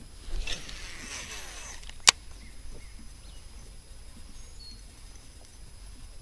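Baitcasting reel's spool whirring and slowing down in pitch as line pays out on a cast, then one sharp click about two seconds in. Faint bird chirps in the background.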